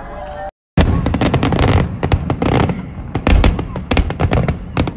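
Aerial fireworks shells bursting in rapid succession: a dense run of loud bangs, several a second, with crackling between them. It starts abruptly after a brief dropout to silence about half a second in.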